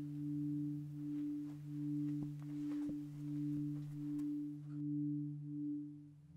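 Synthesized suspense score: a low steady drone under a higher pure tone that pulses evenly, about once every three-quarters of a second, eight pulses in all.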